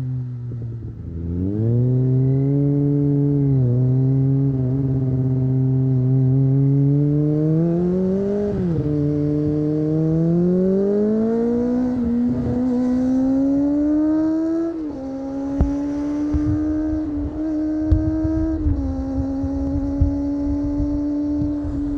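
Kawasaki ZX-25R 250 cc inline-four with an Akrapovic exhaust, heard from onboard while riding: the revs climb steadily, then drop sharply at each gear change, several times, before holding steady near the end. A few short sharp knocks come in the second half.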